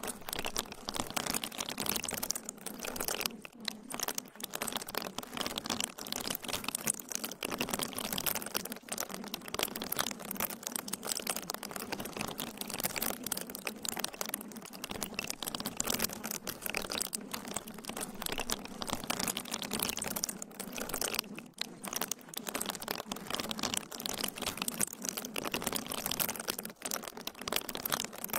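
Continuous dense crackling made of many tiny clicks, steady in level, with no voice or tune.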